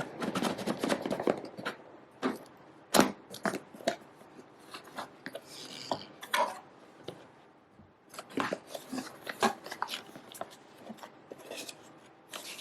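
A camera box and its packaging being handled and opened: scattered clicks, taps and rustles, with a short lull about two-thirds of the way through.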